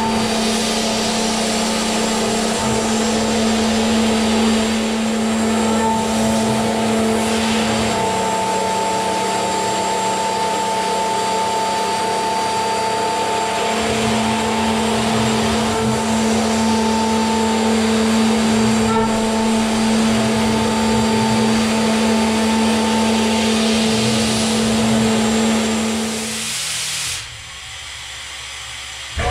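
Hiteco spindle of a CNC milling machine cutting aluminium: a steady whine with the chatter of the cut and a constant hiss from the compressed-air coolant nozzle. The whine dips slightly in pitch for several seconds in the middle, and about 27 seconds in the cut stops and the sound drops to a quieter hum.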